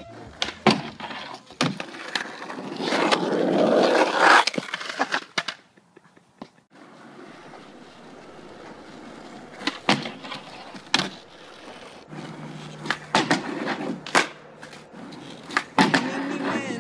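Skateboard on an asphalt driveway: urethane wheels rolling, with sharp clacks of the tail popping and the board slapping down on the asphalt and onto a plywood board and wooden box. There is a louder stretch of rolling and scraping a few seconds in.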